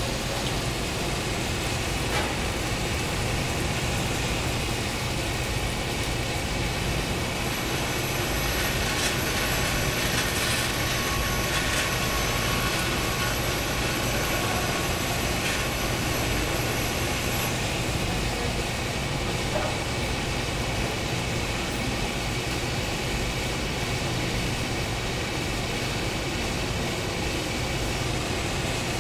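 Steady din of metalworking factory machinery, with a low hum under it. A thin high whine joins from about 7 to 17 seconds in, along with a few faint clicks.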